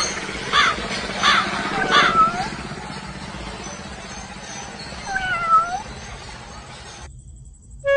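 Animal cries: four short sharp calls about two-thirds of a second apart, then two longer calls that dip and rise in pitch. The sound cuts off suddenly about a second before the end.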